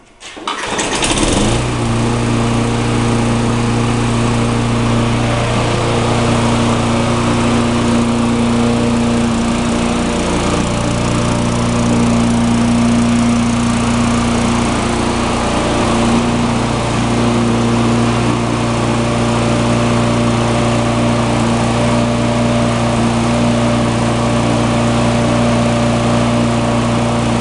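Tecumseh single-cylinder lawn mower engine starting at once, then running at a steady speed without surging. The surge is cured: a missing emulsion-tube O-ring in the carburetor has been replaced and a plugged idle circuit cleared.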